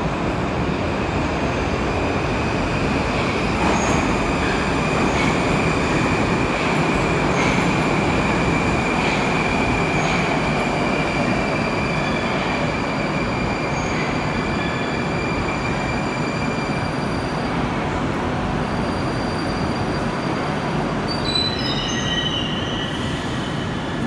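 Moscow metro 81-765/766/767 «Moskva» train running into the station along the platform and slowing, with a steady loud rolling noise. A high steady tone sounds through most of it and fades out after the middle, and a few short high tones follow in quick succession near the end.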